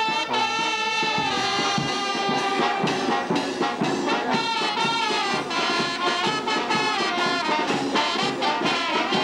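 A brass band playing, trumpets and trombones carrying the tune over a steady beat.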